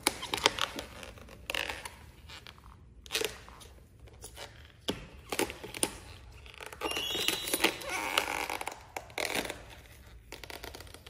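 Thin, low-grade paint protection film being peeled by hand off a car's side-mirror cover: irregular crackling and tearing as the adhesive lets go, louder for a stretch past the middle.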